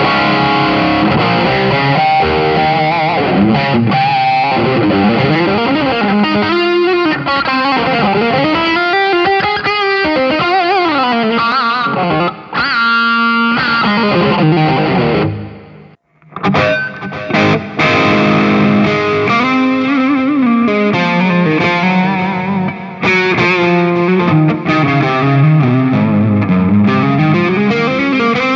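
Electric guitar played through an M-VAVE Tank-G multi-effects pedal with a distorted lead tone, single-note lines with string bends and vibrato. The playing breaks off briefly just past halfway, then resumes.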